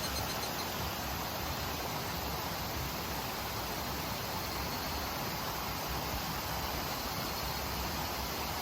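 Mountain stream flowing in a steady rush. A higurashi evening cicada's high, pulsing call trails off about half a second in.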